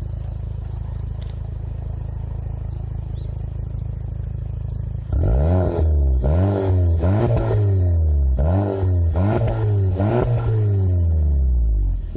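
Exhaust of a 2015 Volkswagen Golf GTI's 2.0-litre turbocharged four-cylinder, idling steadily and then, about five seconds in, revved in a series of quick blips, a couple held briefly, the revs capped by the rev limiter of about 3,500 rpm that applies in park.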